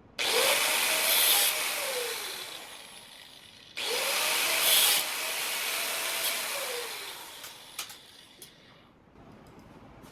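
Angle grinder cutting through short metal rods twice: each time the motor starts suddenly, rising in pitch, runs with a loud hissing grind through the rod, then winds down over a few seconds.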